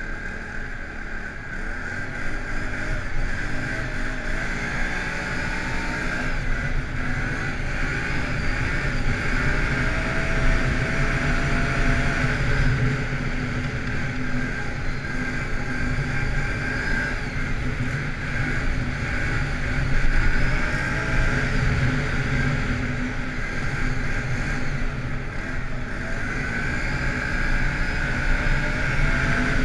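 ATV engine running at riding speed, its pitch rising and falling with the throttle.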